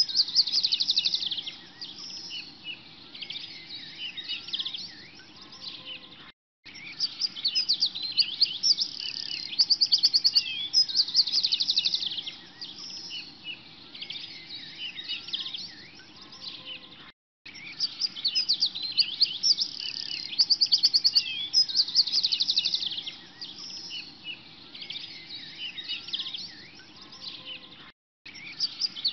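Many small birds chirping and trilling in a busy chorus of high calls. The same stretch of birdsong repeats as a loop, cutting out for a moment about every eleven seconds and starting over.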